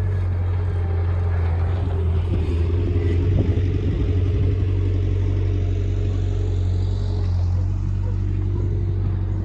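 A vehicle engine running steadily, a low even drone with no change in speed.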